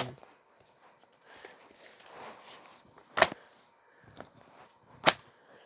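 Comic books being handled and laid down: faint paper and plastic rustling, then two sharp slaps, about three seconds in and again near the end.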